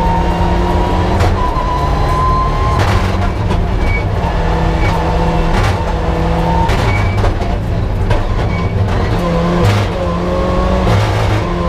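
Mitsubishi Lancer Evolution IX rally car's turbocharged four-cylinder engine heard from inside the cabin at full stage pace, its pitch climbing and dropping again and again through gear changes and corners. Sharp cracks are scattered throughout.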